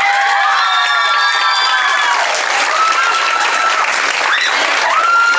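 Audience applauding and cheering, with several long, high-pitched shouts held over the clapping.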